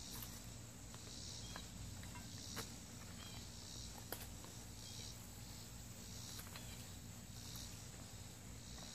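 Faint insects trilling in short high-pitched bursts every second or so, with a few small clicks.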